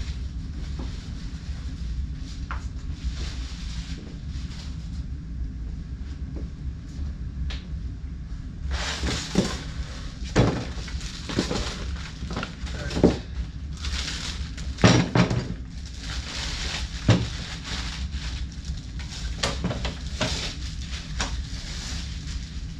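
Hard metal clanks and knocks from miter saw stand parts being handled and fitted together, starting about a third of the way in with a handful of sharp strikes. A steady low hum runs underneath.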